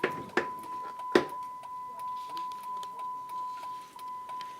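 A 2006 Dodge Charger's door clunks open, with a second knock about a second in, and then the car's warning chime sounds as one steady high beep over an even ticking of about three clicks a second, the alert for an open door.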